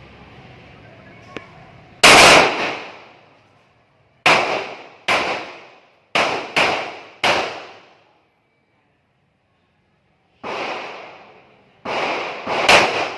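Pistol shots, about nine in irregular groups, some in quick pairs, each crack followed by an echo lasting around a second.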